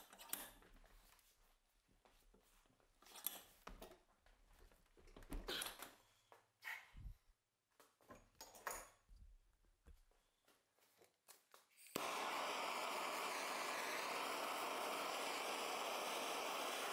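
Faint clicks and handling knocks on metal parts in a vise, then about twelve seconds in a handheld gas torch comes on suddenly and hisses steadily. The flame is playing on the receiver of a Colt Lightning rifle to heat it.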